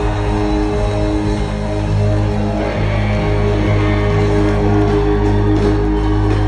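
A live band playing loud amplified music, with guitars and bass holding long, steady chords.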